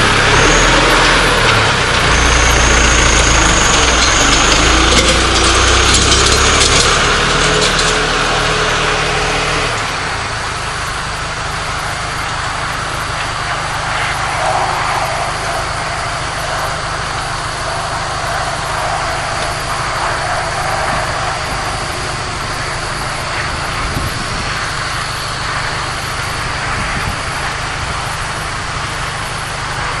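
Tractor engine running with a hay baler hitched behind. For the first several seconds it is louder, with a tone that rises in pitch, then it settles into a steady run.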